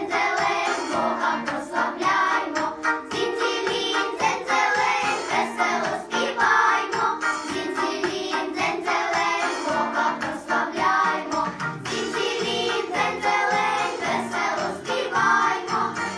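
Children's vocal ensemble singing a Christmas song together in several voices, with instrumental accompaniment.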